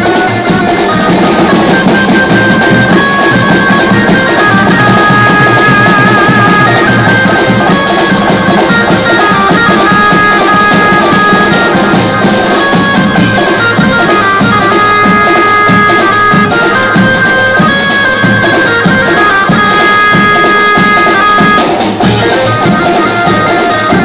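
Live drum band playing loudly: several drummers beat sets of drums and a bass drum in a driving rhythm. A melody of long held notes sounds above the drums and drops out near the end.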